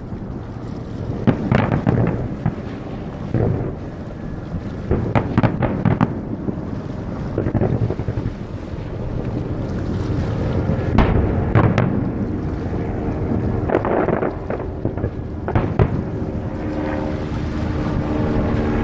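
Aerial fireworks shells bursting overhead, a dozen or so bangs at irregular intervals over a continuous rumble. A steady low hum joins near the end.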